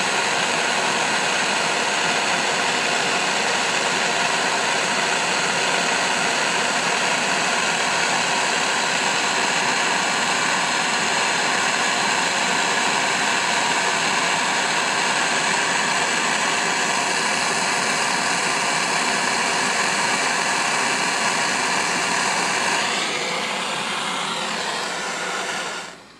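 Handheld gas torch running at full flame with a loud, steady hiss as it heats a silver nugget to melting. Near the end the hiss wavers and weakens briefly, then cuts off suddenly as the torch is shut off.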